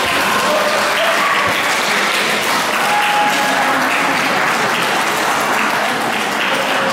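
Spectators applauding steadily, with a few voices calling out over the clapping.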